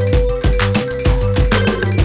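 Background music with a steady electronic beat, about two strikes a second, over a deep bass line and a held note.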